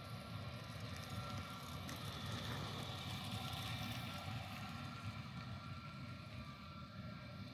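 Twin jet engines of a Viva Aerobus Airbus A320 running at taxi power: a steady distant rumble with a thin high whine, a little louder around the middle.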